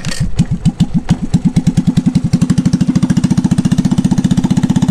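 Honda ATC 110 three-wheeler's small single-cylinder four-stroke engine, pull-started, catching at once. Its firing beats quicken from slow and uneven to a steady, rapid idle within about two seconds. The engine runs on a freshly cleaned carburettor and still has an exhaust leak.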